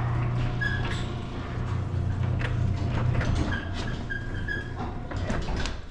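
Motorised garage door closing: an opener motor hums steadily while the door rattles down with a few short squeaks, and it stops near the end as the door shuts.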